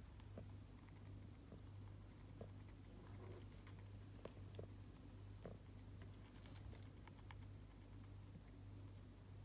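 Faint, irregular small ticks of Roborovski dwarf hamsters nibbling broccoli, over a steady low hum.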